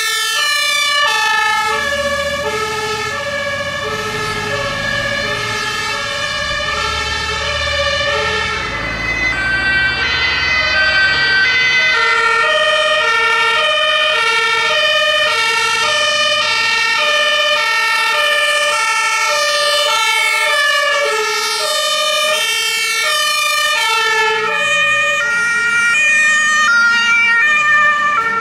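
Two-tone sirens (Martinshorn) of several fire engines sounding at once and out of step, each alternating between two pitches. The low diesel rumble of a passing fire truck sits under them in the first part.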